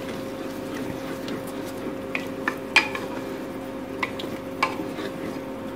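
Wooden spatula stirring mutton pieces in thick gravy inside an aluminium pressure cooker, knocking against the pot's sides every half second or so, over a steady low hum.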